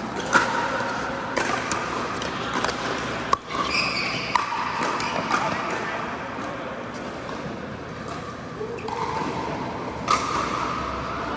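Pickleball paddles hitting the plastic ball and the ball bouncing on the court: a run of sharp pops about a second apart, a lull of several seconds, then another pop near the end, over indistinct voices echoing in an indoor hall.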